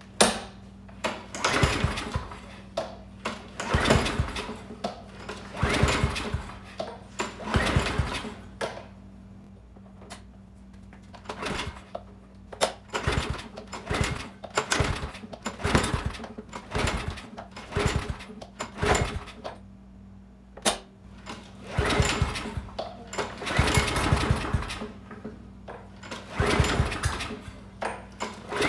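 Briggs & Stratton Quantum single-cylinder mower engine pulled over repeatedly on its recoil starter, the cranking coming in bursts with pauses between runs of pulls. It fails to start and only sputters a little: a no-start despite spark and good compression, with the timing in doubt.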